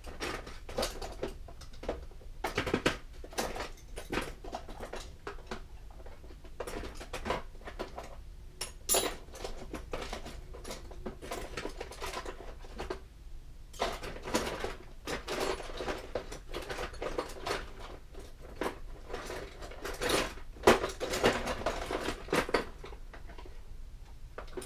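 Someone rummaging through tools and small parts on a workbench: a run of irregular clatters, clicks and rattles of hard objects being moved and set down, with a short lull about halfway through.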